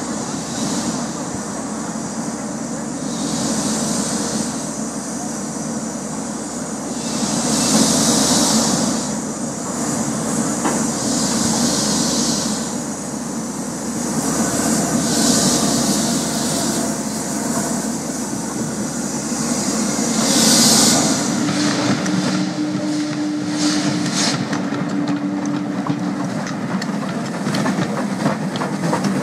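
Gresley three-cylinder LNER K4 2-6-0 steam locomotive 61994 pulling away slowly, with loud surges of steam hiss about every four seconds. About 21 seconds in the sound changes to the locomotive working a train, with a steady low tone for a few seconds.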